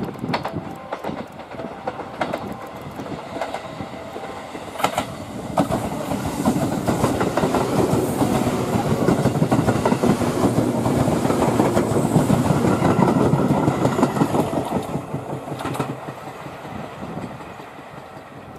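Tobu 1800 series electric train passing close by, its wheels clicking over rail joints and points. The rumble grows louder through the middle as the cars go past, then fades away near the end.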